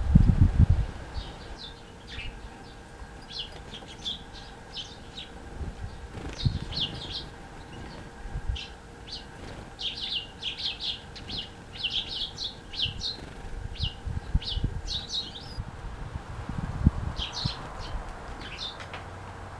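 Small garden songbirds calling with many quick, high chirps in irregular clusters, busiest in the middle of the stretch. A short flutter of wings comes right at the start, as a great tit takes off from the feeder dish.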